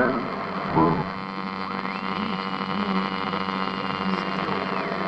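Broken radio: two brief snatches of singing break through in the first second, then a steady electrical hum and buzz with faint static. A thin whistle glides up about two seconds in, holds, and slides back down near the end.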